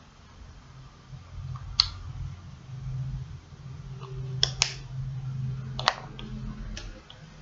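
Small sharp clicks and taps from a lipstick being applied and its tube handled. There are about five in all, two in quick succession about halfway through, over a low steady hum.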